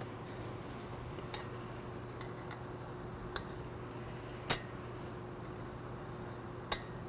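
Steel Allen wrench clinking against a bolt head and steel bracket as it is fitted and turned to loosen the bolt: a few sharp metallic clicks, the loudest with a short ring just past halfway, over a faint steady hum.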